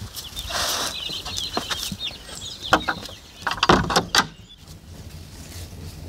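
Wooden shed door pushed shut and its metal bolt latch worked, giving several loud sharp knocks and clacks. Chicken-like clucking sounds during the first couple of seconds.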